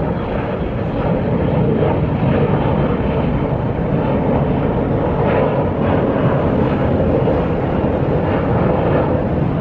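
Small twin-engine jet airliner climbing steeply just after takeoff: the steady, loud roar of its turbofan engines at climb thrust.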